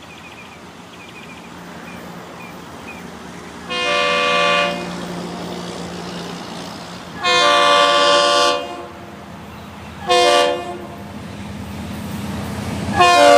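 EMD SD40 diesel locomotive approaching while sounding its air horn in the grade-crossing pattern: two long blasts, a short one, then a final long blast that begins near the end. The engine's low drone grows louder as the train nears.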